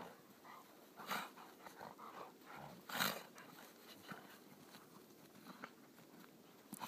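Two Briards play-wrestling in snow: faint scuffling with short dog noises, the loudest about one and three seconds in.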